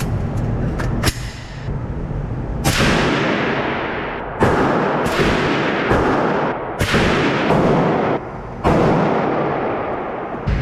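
A series of about seven loud gunshots, spaced roughly a second apart, each trailing off over a second or so, with a few lighter clicks in the first second.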